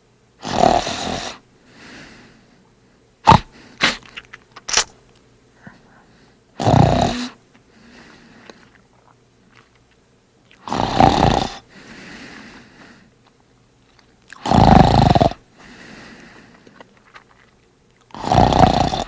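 A man snoring loudly during sleep: five heavy snores about four seconds apart, each followed by a softer breath out. A few seconds in, three short sharp sounds break the rhythm.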